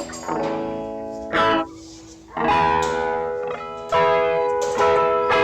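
Background music: chords struck about once a second and left to ring.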